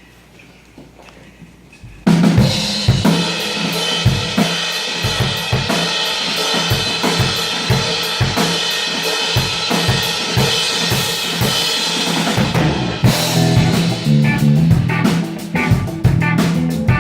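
Live rock band kicking in abruptly about two seconds in, the drum kit's kick and snare hits prominent over guitar and bass. Just before the end the music breaks briefly and turns into a choppy, stop-start riff.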